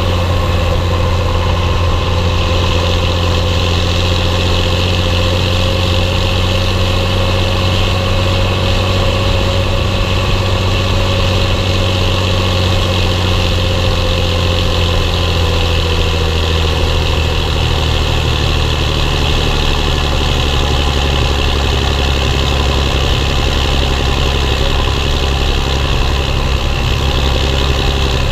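Belarus 1221.3 tractor's six-cylinder diesel engine running steadily under load, pulling loaded grain trailers. A faint whine slides slightly lower in pitch about halfway through as the engine note settles lower.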